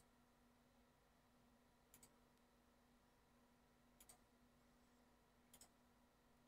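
Near silence with a few faint computer mouse clicks, in quick pairs, about every two seconds.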